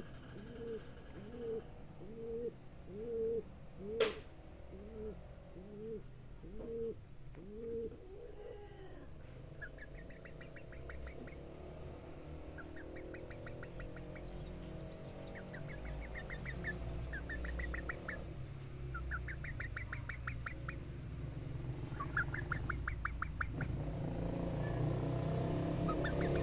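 A hen, held and stroked, makes soft low calls, one about every 0.8 seconds for the first nine seconds, with a sharp click about four seconds in. After that come short bursts of fast, higher-pitched trilling, each about a second long, repeating every couple of seconds.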